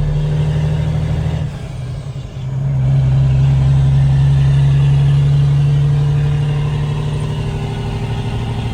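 Semi truck's diesel engine pulling away loaded with wheat. The engine note drops off briefly about a second and a half in, as at a gear change, then comes back strong and steady.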